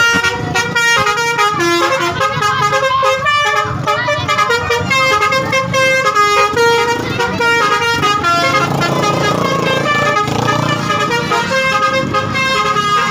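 Multi-tone 'telolet' bus horns playing quick melodic runs, several horn notes stepping up and down in pitch and sounding together.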